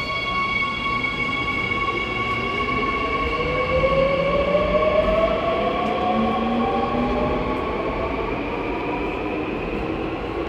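Subway train pulling out of the station behind the platform screen doors, its motors whining up in pitch as it gathers speed over a steady rumble.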